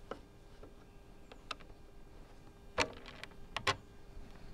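Scattered clicks and small knocks of a hand tool turning the screw that holds the plastic top cover on a lawnmower engine, with two sharper clacks a little under a second apart near three seconds in.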